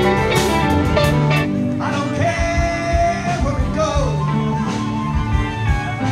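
Live rock band playing electric guitars, keyboard and drums, with a singing voice carrying a melody in the middle. Drum hits are clearest in the first second or so.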